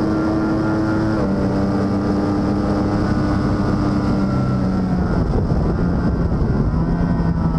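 Racing motorcycle engine heard from on board at speed, a steady high-revving note over rushing air. The pitch dips around five seconds in, then climbs again near the end.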